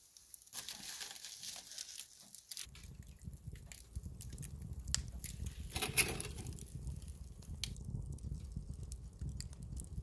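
Wood fire crackling and popping in a fireplace: scattered irregular snaps, with a low steady rumble coming in about two and a half seconds in.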